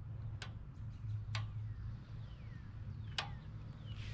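Three sharp clicks, spaced a second or two apart, from the pressure washer engine's choke-to-run control lever being handled. Faint bird chirps in the background.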